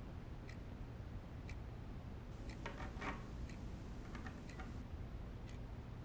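A clock ticking about once a second, with a few quicker small clicks near the middle.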